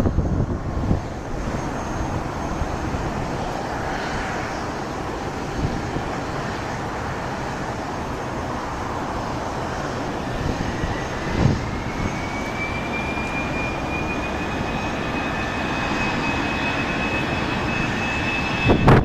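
Airbus A319's CFM56 jet engines running up for takeoff: a steady roar with a whine that rises about ten seconds in and then holds at a higher pitch. Wind buffets the microphone now and then.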